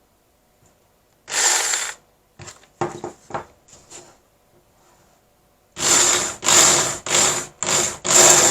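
Electric drill run in reverse in short bursts, its hole saw scraping around the edge of a hole in a PVC pipe to enlarge it. There is one burst about a second in and a few light clicks, then five half-second bursts in quick succession from about six seconds in.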